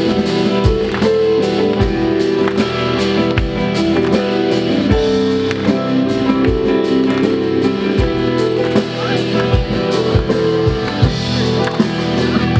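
Live band playing a song on electric guitar, electric bass, keyboard and drum kit, with the drums keeping a steady beat.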